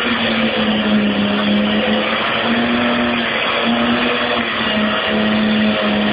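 Car engine held at high, steady revs during a burnout, with the hiss of spinning tyres underneath.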